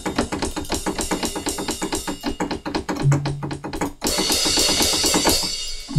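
Sampled acoustic drum kit from Native Instruments' Studio Drummer, played from a MIDI keyboard: a fast, even run of drum hits for about four seconds, then a cymbal ringing out.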